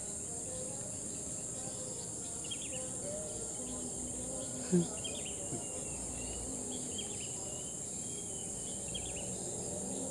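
Steady high-pitched shrilling of an evening insect chorus, with short chirping calls repeating about once a second over it. One brief thump sounds a little before the middle.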